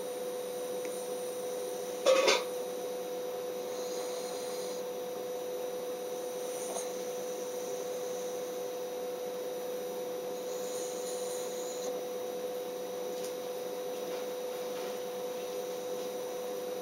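A sleeping pet's light snoring, faint under a steady hum, with one short louder noise about two seconds in.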